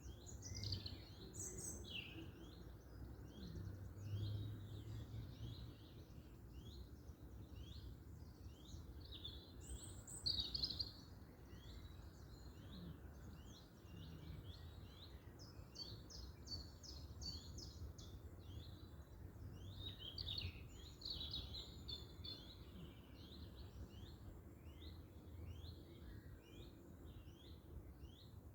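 Small songbirds singing, a continuous chorus of quick chirps and trills with a louder flurry about ten seconds in, over a low steady rumble.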